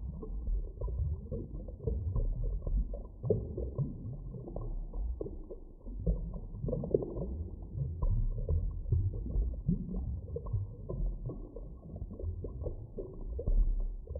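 Underwater ocean ambience: a dull, muffled low rumble with irregular clicks and pops throughout.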